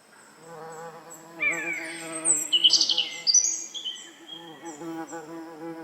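Woodland birds singing: several overlapping high chirps and whistled notes, busiest and loudest in the middle. Under them runs a low wavering buzz that fades out about two-thirds of the way through.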